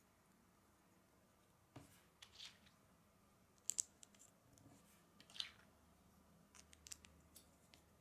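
Small plastic Lego bricks being handled and pressed together: scattered clicks and snaps, with two sharp snaps close together a little under four seconds in and another about five and a half seconds in.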